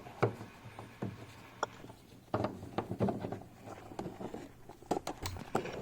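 Plastic headlamp rear cover being handled and twisted back onto the headlight housing: scattered light clicks and knocks of plastic.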